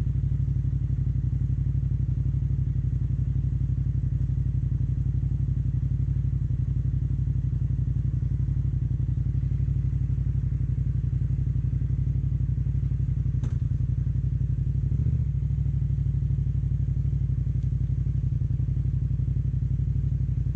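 Yamaha MT-07 motorcycle's parallel-twin engine running at a steady, unchanging engine speed, with no revving. A light thud about three quarters through.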